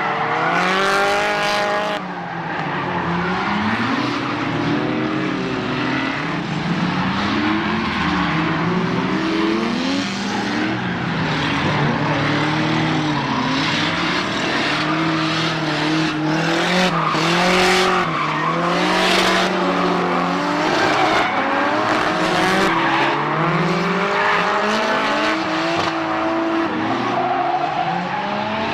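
Drift cars sliding: engines revving up and down again and again, with tires squealing.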